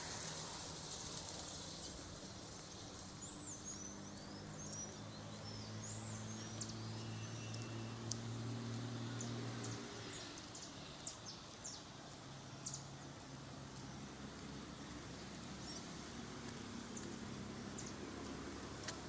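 Outdoor ambience with small birds chirping in quick looping calls, then a run of short high chips, over a low steady hum that stops about halfway through and returns faintly near the end.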